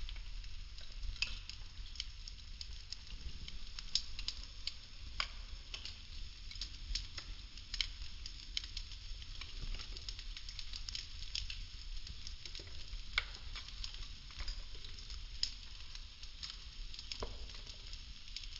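Popsicle-stick wood burning, with a continuous crackle of irregular sharp pops over a low steady rumble of flame.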